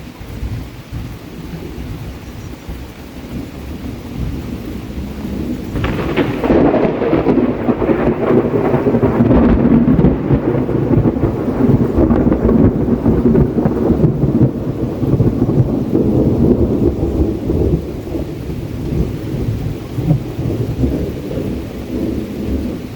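Long rolling rumble of thunder over rain, building slowly, swelling sharply about six seconds in and then gradually dying away.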